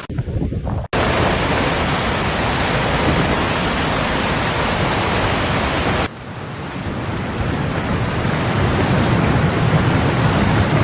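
Loud, steady rushing noise of heavy rain and water, broken into three stretches by abrupt cuts about a second in and about six seconds in.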